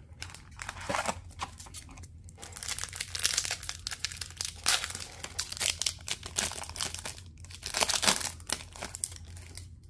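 Foil wrapper of an O-Pee-Chee Platinum hockey card pack being crinkled and torn open by hand, crackling in spells, loudest about three seconds in and again about eight seconds in.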